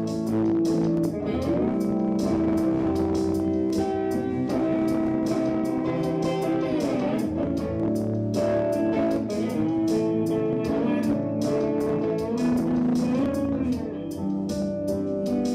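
Electric guitar playing sustained lead notes with string bends over a steady beat.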